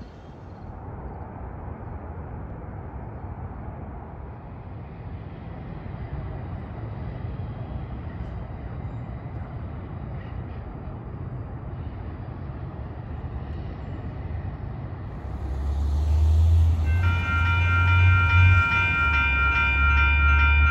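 Approaching diesel locomotive: a steady low rumble grows much louder about three-quarters of the way in as the engine nears. Then its air horn starts a long, held chord.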